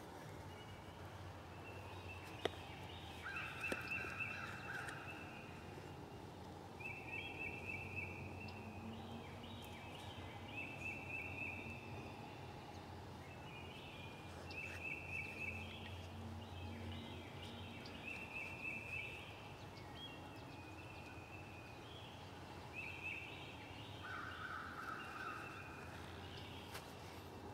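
A bird singing a short trilled song every few seconds over faint woodland background noise, with a lower trill heard twice.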